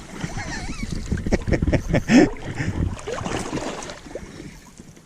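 Water splashing and sloshing against a steady wind on the microphone, while a hooked fish is brought in. The loudest splash comes about two seconds in.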